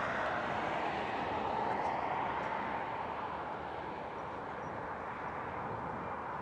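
Airbus A300-600ST Beluga's two GE CF6-80C2 turbofan engines at takeoff power, a steady jet roar as the aircraft rolls down the runway.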